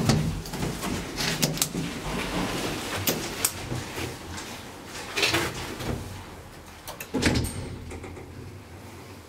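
Doors of a Deve Schindler hydraulic elevator sliding and clattering, with a series of knocks and rattles. The loudest knock comes a little past seven seconds in, after which it goes quieter.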